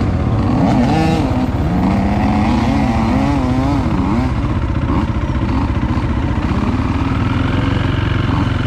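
Dirt bike engine running under way on a trail, the revs rising and falling repeatedly with the throttle in the first few seconds, then steadier.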